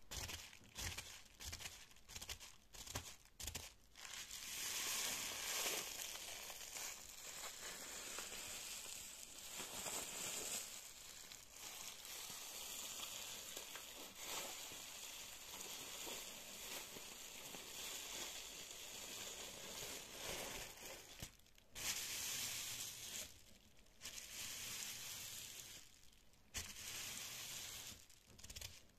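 Fingertips tapping and scratching on bubble wrap, making crinkly rustling. The first few seconds are short separate strokes. After that it becomes long stretches of continuous scratching, broken by a few short pauses near the end.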